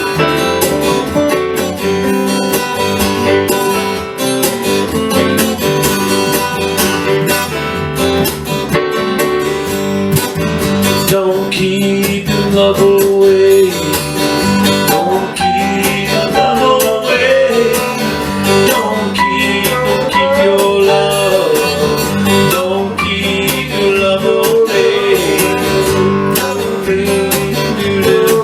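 Acoustic guitar strummed in a steady rhythm, an instrumental passage of a song, with a wavering melody line over it in the middle.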